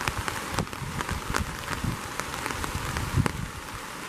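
Rain falling steadily, with scattered sharp taps of single raindrops striking close to the microphone.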